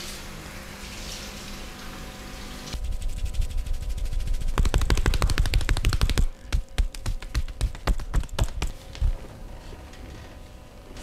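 Rapid percussive massage strokes: hands striking the body in a fast, even run of sharp slaps, then slower, irregular single slaps from about six seconds in.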